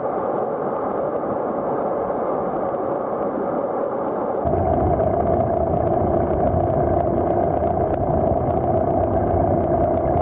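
Steady rushing ambient noise with no clear rhythm, turning fuller and lower, with a faint steady hum, about four and a half seconds in.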